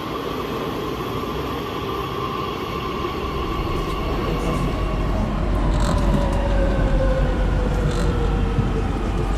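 Madrid Metro train slowing as it enters the station: motor whine falling slowly in pitch over a deep rumble of wheels on rail, with a few sharp clicks from the running gear.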